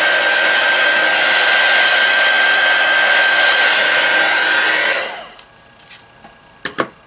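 Handheld craft heat gun blowing over freshly poured epoxy resin to pop surface bubbles: a steady rush of air with a steady high whine, switched off about five seconds in. A couple of light clicks follow near the end.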